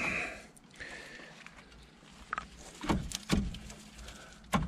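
Kia Picanto front brake caliper being worked back over new brake pads onto its carrier: a few scattered metallic clicks and knocks, a cluster about three seconds in and the loudest just before the end.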